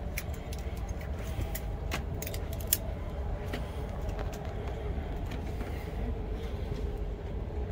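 Steady low hum of an Airbus A330 Voyager's cabin air systems, with scattered light clicks and clinks from seats and seatbelt buckles being handled, one sharper click near the middle.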